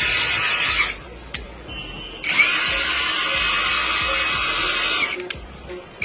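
EMTOP 1350 Nm cordless impact wrench running in two bursts, with a steady high-pitched whine over the noise. The first burst stops about a second in; the second runs from about two to five seconds.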